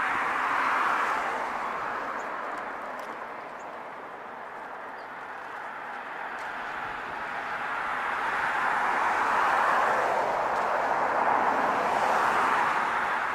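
Distant vehicle noise: a steady rush that swells and fades, loudest just after the start and again through the second half.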